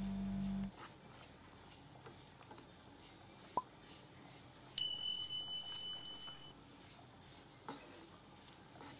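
Wooden spoon stirring grated coconut and sugar around a nonstick pan, faint repeated scraping strokes as the sugar melts into the coconut. About five seconds in, a steady high electronic beep sounds for under two seconds.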